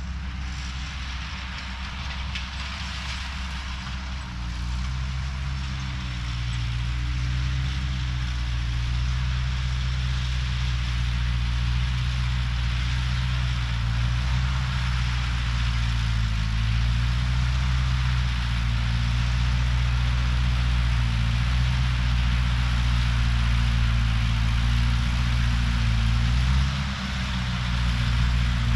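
Tractor engine running steadily, growing louder over the first several seconds, its pitch wavering a little, with a brief dip near the end.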